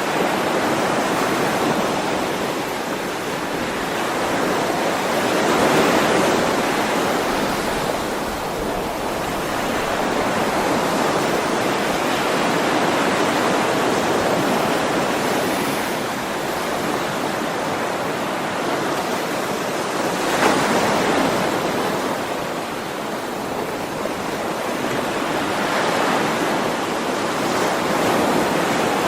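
Ocean waves washing onto a shore, a continuous surf hiss that swells and falls back every several seconds as each wave breaks and recedes.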